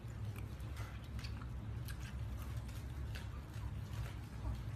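Puppy sucking at a baby bottle, making faint irregular smacking clicks over a low steady hum.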